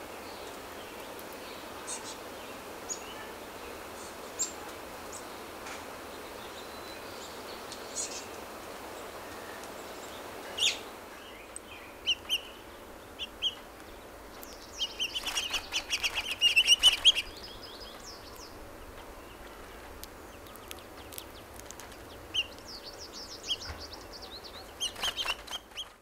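House finches chirping: scattered short high chirps, with a burst of rapid twittering about fifteen seconds in and a shorter one near the end, over a steady outdoor hiss.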